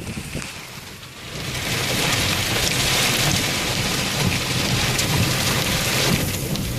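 Heavy rain during a thunderstorm, swelling to a dense steady hiss about a second and a half in, over a low rumble.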